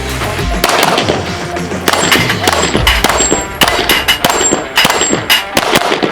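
A rapid string of pistol shots, about two a second, with steel targets ringing with a clang after several of the hits.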